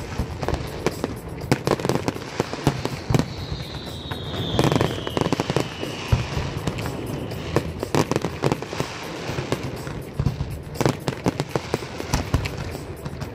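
Fireworks display: a dense, irregular barrage of sharp bangs and crackling pops from aerial shells and comets. About three seconds in, a high whistle falls in pitch over about three seconds.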